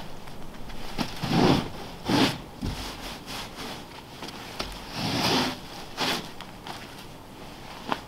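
Snow brush sweeping snow off the glass of solar panels in broad scraping strokes: a pair of strokes a second or two in, and another pair about five to six seconds in.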